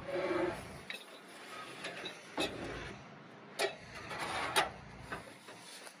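Removable aluminium RV entry steps being handled and fitted on their mount: scraping and rubbing, with a few sharp metal knocks and clunks in the second half.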